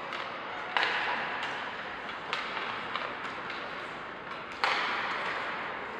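Ice hockey play in a rink: sharp knocks of sticks and puck, with two louder bangs about a second in and near the end, each ringing on in the arena's echo.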